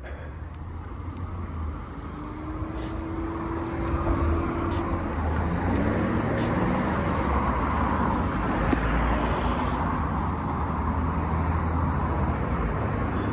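Road traffic: a steady rumble of cars going by, building over the first few seconds and then holding.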